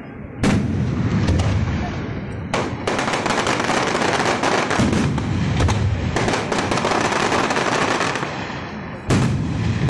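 Aerial fireworks: a dense, rapid barrage of bangs and crackling that breaks out suddenly about half a second in, with fresh loud volleys about two and a half seconds in and again near the end.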